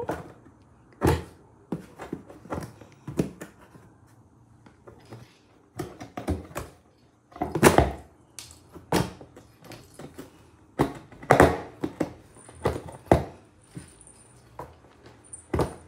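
Irregular thumps and knocks on a cardboard box from a cat inside lunging and batting at a toy dangled at a slot in the box's side.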